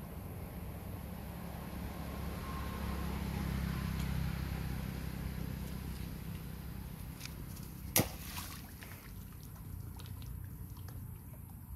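Steady low outdoor rumble with one sharp click about eight seconds in and a few faint ticks near the end.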